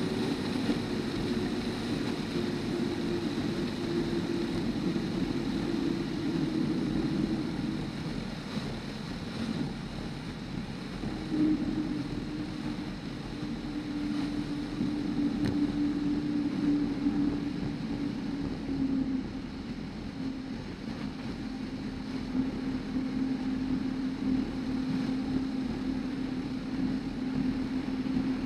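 Van's RV-10 light aircraft's piston engine and propeller running steadily as the plane rolls along the runway after landing, under wind and rolling rumble. The engine's drone steps lower in pitch about eight seconds in and again past the middle.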